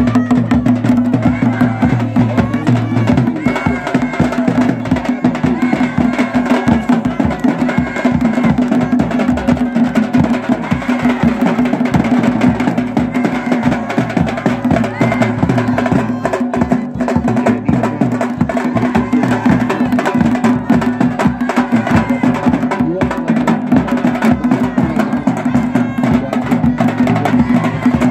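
Traditional dhol and damau drumming: a fast, continuous beat on a barrel drum and a small kettle drum. A steady held drone sounds underneath.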